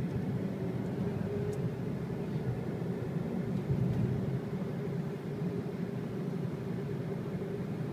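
Steady engine and road noise heard from inside a moving car's cabin, a low even rumble with a faint steady hum.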